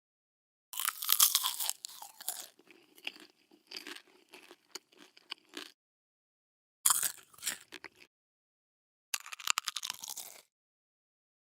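A person biting into crunchy food and chewing it: a loud crunch at the first bite, then a few seconds of crackling chews, followed by two shorter crunchy bursts, each separated by dead silence.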